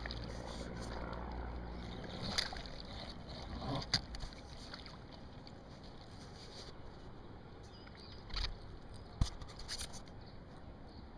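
A low steady hum for the first two seconds or so, then scattered sharp knocks and short rustles: handling noise from a fish just landed on shore.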